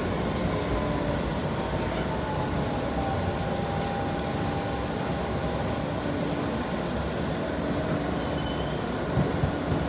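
New York City subway car running on the track, heard from inside the car: a steady rumble of wheels and running gear, with a faint thin whine in the first few seconds.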